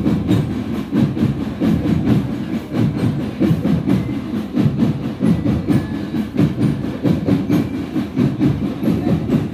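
Continuous rhythmic drumming with a dense low rumble, many quick hits repeating evenly, typical of a marching band's percussion section.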